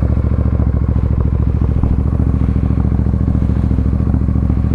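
Royal Enfield Super Meteor 650's parallel-twin engine idling steadily at a constant pitch, left running after starting.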